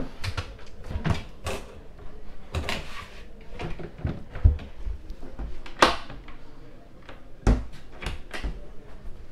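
Galley cupboard doors and a top-loading fridge lid being opened and shut by hand: a string of knocks and clicks, with a sharp one about six seconds in and heavier thumps shortly before and after it.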